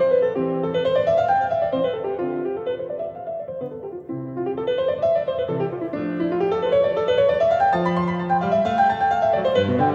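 Piano music: runs of notes rising and falling in repeated waves over lower held notes.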